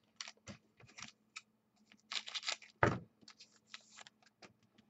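Football trading cards being handled and flipped through by hand: a run of light, irregular clicks and flicks, with one louder knock about three seconds in.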